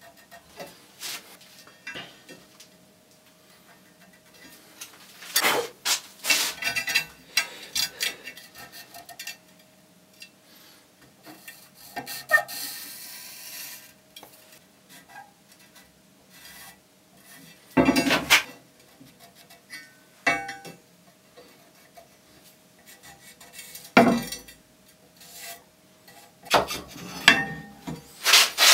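Hand work marking out a steel plate on a wooden workbench: felt-tip marker strokes and scraping along a steel rule, light clicks of metal tools, and two heavier knocks as the plate or a tool is set down on the bench. The sounds come in short irregular bursts with pauses between, and grow dense near the end.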